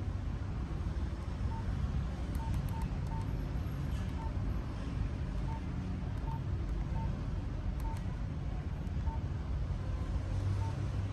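A mobile phone's keypad beeping as its buttons are pressed: about a dozen short, single-pitched beeps at irregular intervals, over a steady low rumble.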